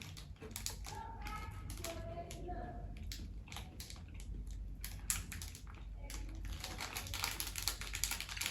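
Irregular crisp crunches of a small crunchy cookie being chewed close to the microphone, thickening into a denser crunching near the end.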